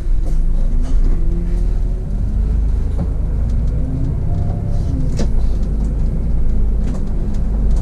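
City bus under way, heard from the driver's cab: a steady low engine rumble with drivetrain whine that rises and falls in pitch as the bus accelerates. A sharp click sounds about five seconds in.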